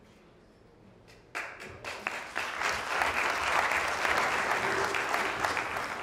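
Audience applauding: the clapping starts about a second and a half in, after a near-quiet pause, and swells into a full round of applause.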